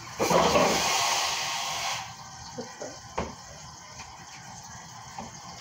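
A kitchen tap runs in a loud rush for about two seconds, then shuts off sharply. A few light knocks follow.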